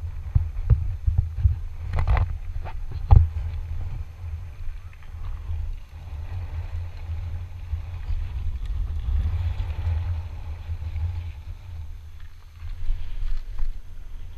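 Low wind rumble on a GoPro Hero4's microphone as a downhill mountain bike rolls over gravel and dirt, with a few sharp knocks about two and three seconds in.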